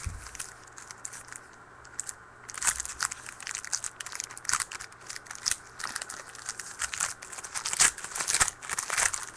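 Crinkling and tearing of a trading-card pack wrapper being ripped open and handled. It is a dense run of sharp crackles starting about two and a half seconds in.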